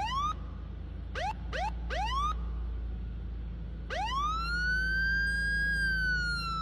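Police car siren giving four quick rising whoops about a second in. About four seconds in it starts a long wail that rises, holds, and slowly falls in pitch. A steady low hum runs beneath.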